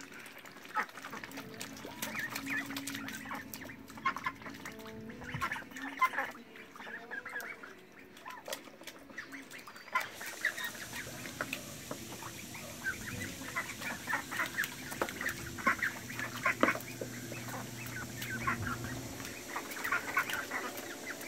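A flock of runner and Pekin ducks quacking in many short calls, with clicks from their bills dabbling in a muddy puddle.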